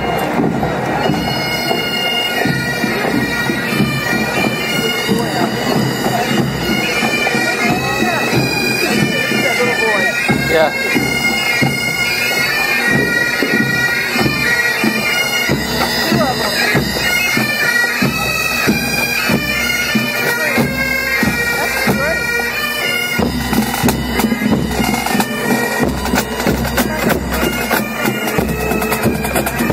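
Scottish pipe band playing a march: massed Highland bagpipes carry a held melody over steady drumming. A low rumble joins about three-quarters of the way through.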